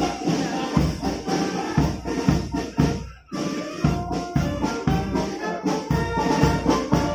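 Navy brass band playing a march over a steady drumbeat. The music breaks off for a moment about three seconds in, then goes on.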